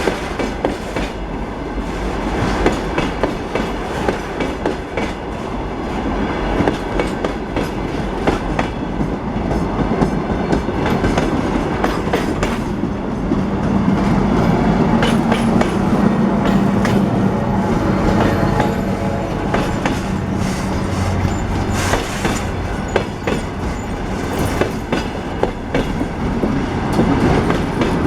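A train rolling past, its wheels clattering over the rail joints without a break, with a steady low hum through the middle.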